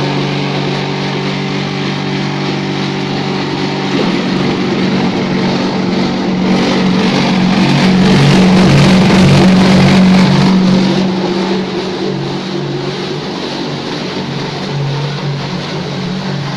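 Electric mortar sprayer machine running: a steady motor hum from the mixer and pump drive. It grows louder and harsher for a few seconds near the middle, then settles back.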